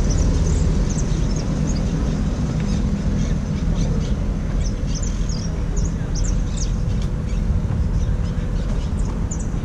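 Wind buffeting the microphone in a steady low rumble, with birds chirping over it in many short high calls.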